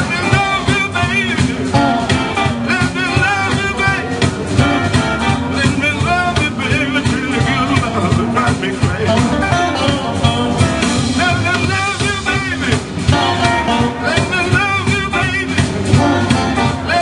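Live electric blues band playing: electric guitars, bass guitar and drum kit over a steady beat, with bending guitar notes.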